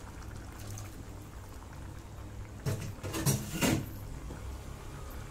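Kurma curry simmering in a steel pot over a steady low hum. About three seconds in, three or four sharp metal knocks follow each other quickly: the ladle striking the pot.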